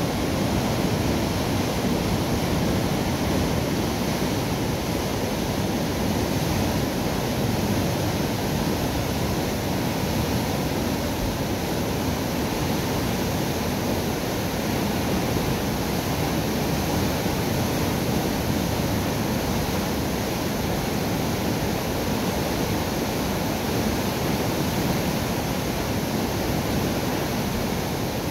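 Water gushing through the sluices of a river lock gate, a steady, unbroken rush of churning white water.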